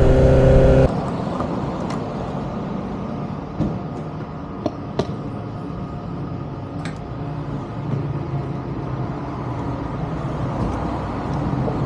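A motorcycle engine running steadily, cutting off abruptly about a second in. Then a quieter steady vehicle rumble follows, with a few sharp clicks near the middle.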